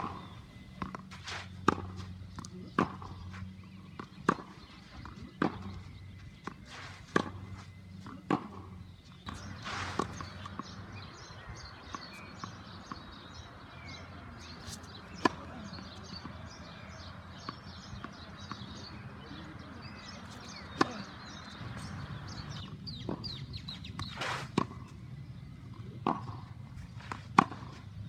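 Tennis balls struck by racquets and bouncing on court in a rally, a sharp pop about every second or so. In the middle stretch the hits thin out over a steady hiss, with birds chirping in the background.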